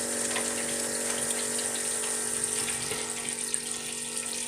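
Batter-coated chicken balls frying in a deep fryer: hot oil sizzling and bubbling steadily, with scattered faint crackles.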